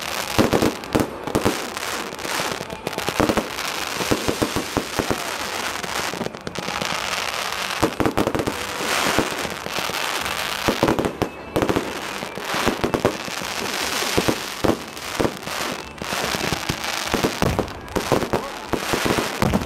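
Fireworks display: a dense, uneven run of bangs and crackles that hardly pauses.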